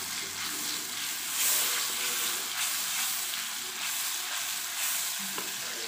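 Tomato-onion masala sizzling in hot oil in a kadhai, stirred with a wooden spatula: the masala is being bhuna, fried down in the oil. A steady sizzle with faint repeated scrapes of the stirring.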